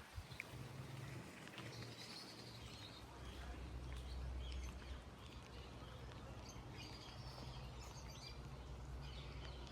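Birds chirping intermittently over a low, steady rumble.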